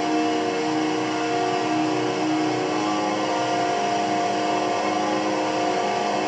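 Black metal: a dense wall of distorted electric guitar holding sustained notes that change every second or so, steady in loudness.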